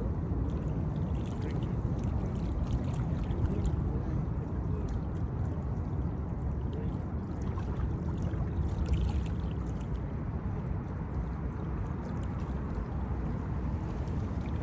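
Wind buffeting an unshielded microphone: a steady, fluttering low rumble.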